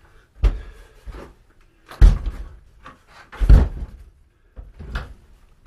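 Four heavy thumps, about a second and a half apart.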